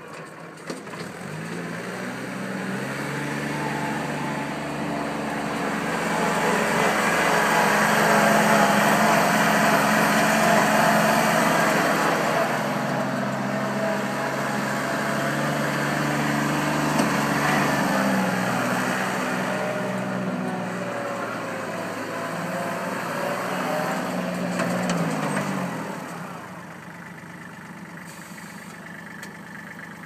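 Kubota L35 tractor's diesel engine running at raised revs, climbing over the first few seconds and holding with small rises and dips. It drops back to a steady idle near the end.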